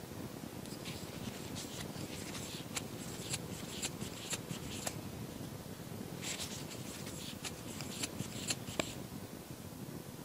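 Crochet hook and yarn being worked through stitches: soft scratching and rustling in short clusters, with a few light clicks, over a faint steady room hum.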